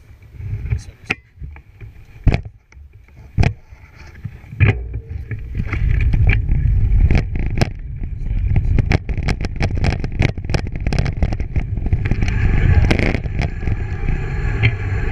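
Bike rolling fast along a trail: wind rumbling on the microphone, much louder from about five seconds in, with frequent sharp clicks and knocks from the bike rattling over bumps.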